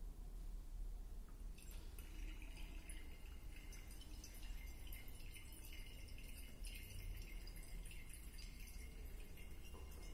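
Faint dripping and swirling of sodium thiosulfate solution running from a burette into a glass flask during a titration, with small ticks from about two seconds in, over a low steady hum.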